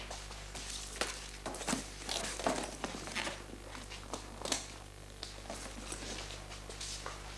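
A bag being handled: irregular rustling and light knocks, busiest in the first half, over a steady low hum.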